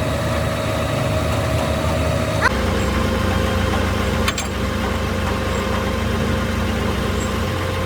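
Engine idling steadily. Its hum shifts abruptly about two and a half seconds in, and a single sharp click comes about four seconds in.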